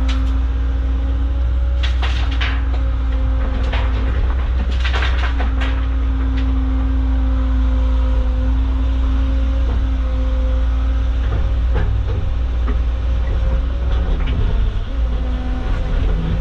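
Caterpillar excavator's diesel engine running steadily under working load, heard from inside the cab, with a steady whine over it. Several short knocks and clatters come in at the start, about two seconds in, and again around four to five seconds in.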